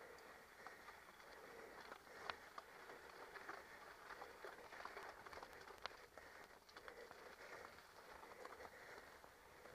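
Faint, muffled crunch of mountain bike tyres rolling over loose gravel, with scattered small clicks and rattles from stones and the bike; one sharper knock about two seconds in and another near six seconds.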